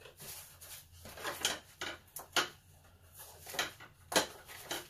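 A sheet of test paper being fetched and handled: a run of short paper rustles and light knocks, the sharpest about four seconds in.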